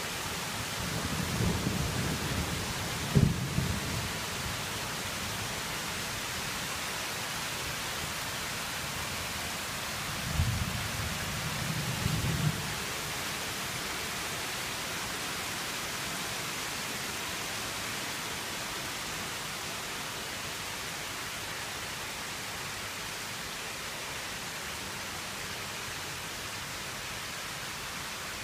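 Rain falling steadily, a constant even hiss. Two short low rumbles break in, one about a second in with a sharp thump near its peak, the other about ten seconds in.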